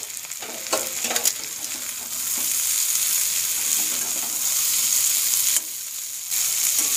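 Rings of bitter gourd, onion and green chillies frying in mustard oil in an uncovered kadai over medium heat with a steady sizzle, not yet crisp. A few metal clinks against the pan come in the first second or so, and the sizzle cuts out briefly about five and a half seconds in.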